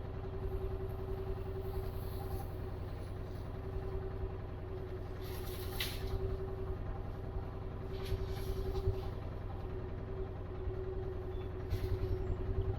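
Small vehicle engine running steadily while driving, a constant drone and low rumble, with a few brief hissing bursts over it.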